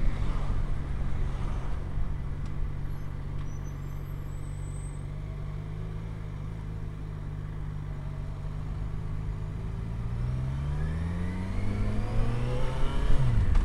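Motorcycle engine running at low revs while wind noise fades as the bike slows. Over the last few seconds the engine note climbs in pitch and grows louder as it accelerates away.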